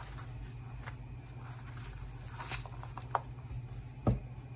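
Unboxing handling noise: hands shifting paper cards and a watch's cardboard presentation box, then lifting out a steel-bracelet wristwatch, giving faint rustles and light clicks over a steady low hum. There is a sharper click about three seconds in and a short knock about a second later.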